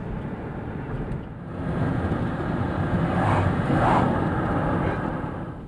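Road and engine noise heard from inside a car's cabin while driving on a wet road, a steady rumble and hiss that swells to its loudest about four seconds in and eases off near the end.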